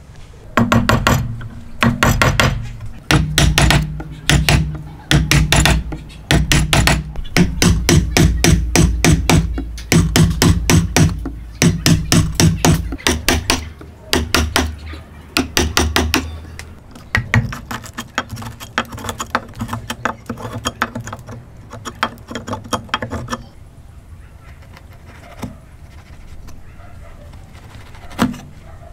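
Steel woodworking chisel driven into a wooden beam by rapid runs of blows, chopping out a mortise: loud bursts of knocks, several a second, with short pauses between. After about 23 seconds the blows stop, leaving soft scraping and a few light taps as the chisel pares the mortise by hand.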